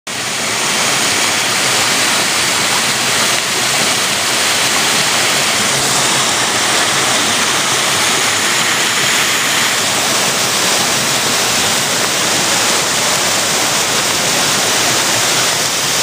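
Small waterfall pouring down a rock face and splashing into a shallow pool: a steady rush of falling water.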